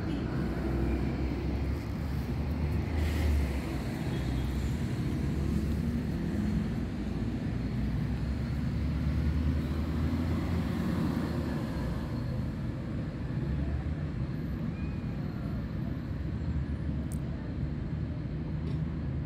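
Steady low outdoor background rumble with no clear distinct events, of the kind made by distant traffic or wind on the microphone.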